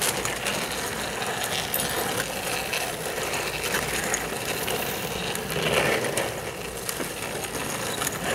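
Skateboard and kick-scooter wheels rolling over asphalt: a steady rolling noise with scattered clicks and clacks, swelling once about six seconds in.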